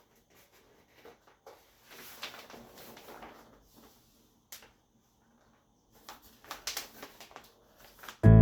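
Faint scattered rustles, light taps and a sharp click from something being handled, with a quiet gap between them. Acoustic guitar music starts suddenly near the end.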